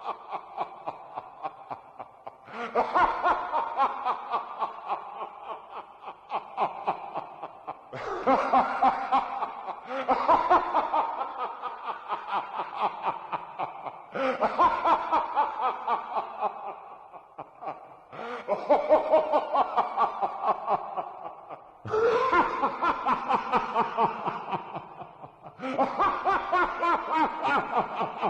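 Evil laugh sound effect: a voice laughing in rapid 'ha-ha-ha' pulses. The laugh comes in repeated bouts, each starting loud and trailing off, with a new one every few seconds.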